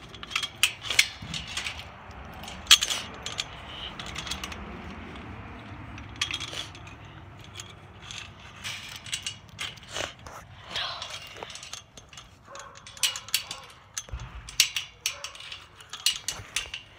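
Irregular metallic clicks and rattles, coming in clusters, from the wire of a chain-link fence being handled close to the microphone.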